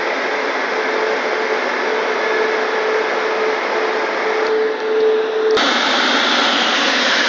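Christ Genius rollover car wash gantry running with its brushes over a van: a steady rushing noise with a humming motor tone. A little over five seconds in, a click, the hum stops and the rush turns brighter, as the wash moves to another stage.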